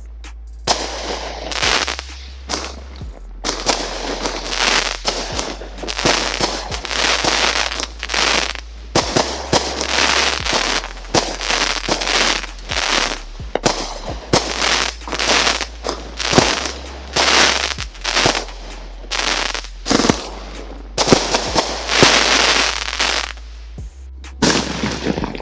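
Consumer aerial firework cakes firing in quick succession: a long run of sharp bangs and crackling bursts, several a second at times, with no real pause.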